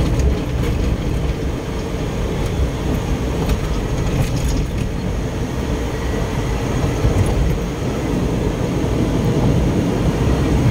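Steady engine and road noise from inside a moving car, with a few faint clicks around the middle.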